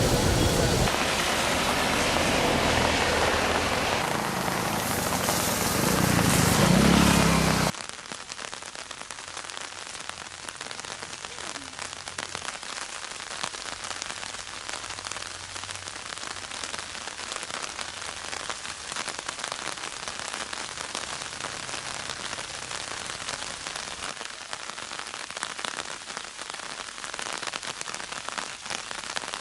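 A loud, even rushing noise that cuts off abruptly about eight seconds in, followed by steady rain falling on a surface, a dense patter of drops.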